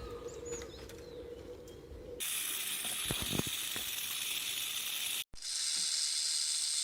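A snake hissing: a steady, loud hiss that stops briefly about five seconds in and starts again. Before it, about two seconds of faint high chirps over a steady hum.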